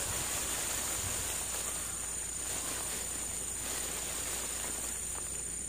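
Steady high-pitched insect chorus, one unbroken buzzing band.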